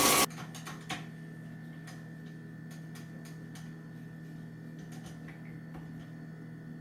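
Running kitchen tap water cuts off just after the start. A steady low hum and light scattered clicks of kitchen items being handled follow, with one sharper tap about a second in.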